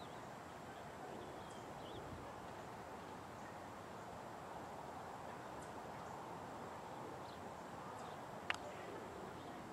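Open-field ambience: a steady low hiss with a few faint bird chirps. About eight and a half seconds in comes a single sharp knock, a cricket ball striking the bat.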